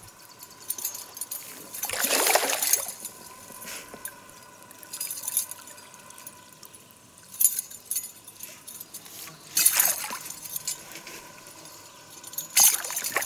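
Water splashing as a hooked rainbow trout thrashes at the surface beside the boat and is worked into a landing net: a handful of separate splashes, the loudest about two seconds in and another near the end.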